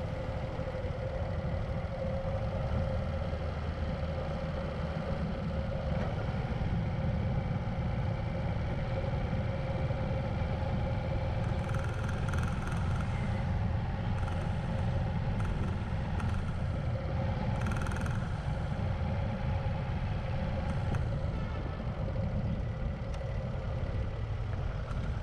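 Motorbike riding along at steady speed: its engine running evenly, with road and wind noise.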